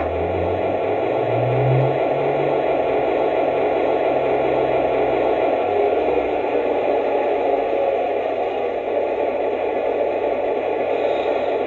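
Lionel RailSounds diesel engine sound for a GE U-33C locomotive playing through the model's freshly replaced speaker, clean and without crackle. It is a steady, noisy engine hum whose low rumble shifts over the first few seconds and then settles.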